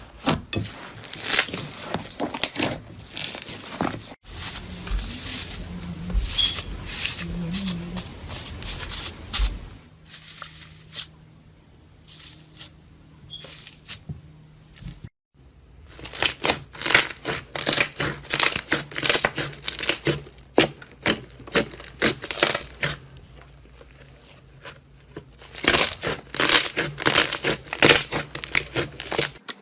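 Slime being handled at close range in a string of short clips: dense crackling, popping and tearing sounds. There is a noisier stretch with low thuds a few seconds in, a sparser, quieter patch around the middle, and dense crackling again through the second half.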